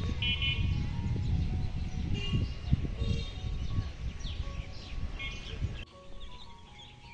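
Busy street traffic rumbling, with several short horn honks. About six seconds in it cuts abruptly to a quieter rural scene of birds chirping.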